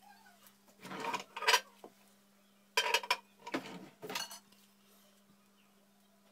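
Ceramic dishes clattering and clinking as a plate is handled, in two bursts: one about a second in and another around three to four seconds in. A faint steady hum runs underneath.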